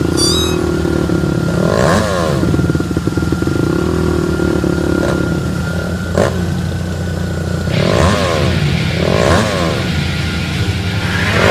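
A motor vehicle engine running steadily and revved up briefly three times, about two seconds in and twice near the end, with a single sharp click in between.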